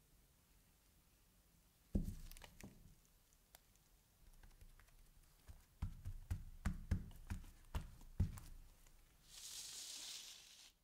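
Soft thumps of a gloved hand patting a paper towel flat on a wooden tabletop, about eight pats in quick succession, after a single thump about two seconds in. Near the end comes a short hiss of a sheet of sandpaper sliding across the table.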